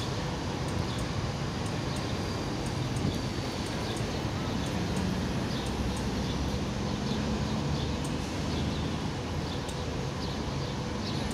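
Steady city street noise: low traffic rumble beside a tram, with faint short high chirps or clicks scattered throughout.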